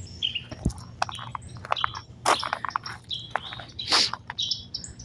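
Small birds chirping, many short calls scattered throughout, with a few sharp knocks, the loudest about two seconds and four seconds in.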